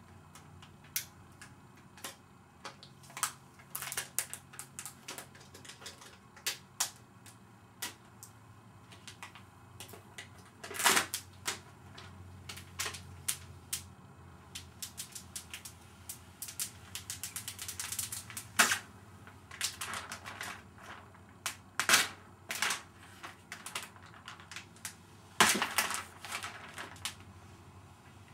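Thin protective plastic film being peeled off a new iMac: irregular crackles and snaps, with a few longer rustling stretches as larger pieces pull away.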